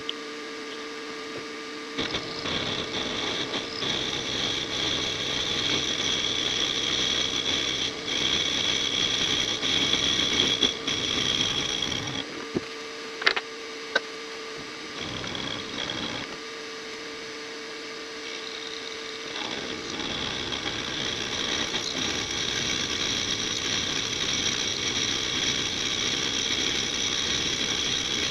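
A PM-25MV benchtop milling machine's spindle running with a steady hum while the cutter takes passes along an angled face of the workpiece. There is a rough cutting noise for about ten seconds, then a stretch of just the spindle hum with a sharp click, then cutting again from about two-thirds of the way through.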